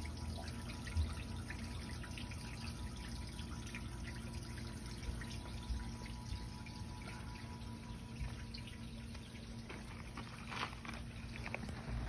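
Shallow garden stream trickling and babbling over stones, with many small splashes.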